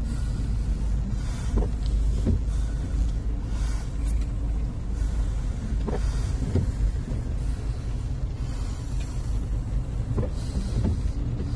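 Car driving, a steady low rumble of engine and road noise heard from inside the cabin, with a few light knocks scattered throughout.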